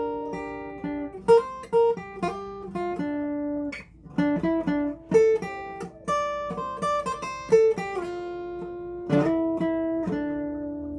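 Music played on a plucked acoustic guitar: a melody of single notes and chords, each ringing and fading, with a brief pause about four seconds in.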